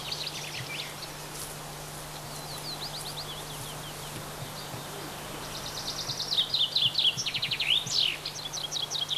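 Small songbirds singing: rapid trills of short, high notes in bursts, sparse at first and busier and louder through the second half. A steady low hum runs underneath.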